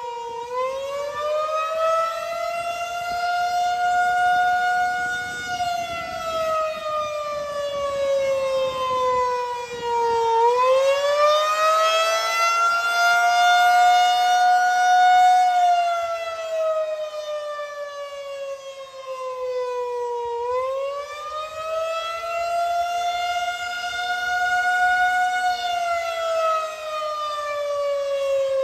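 Federal Signal 2001-130 civil defense siren sounding the attack signal: a wail that rises in pitch, holds near the top, then slides slowly down, about once every ten seconds, three times over. Its loudness swells and fades, and it is pretty loud, echoing off nearby buildings.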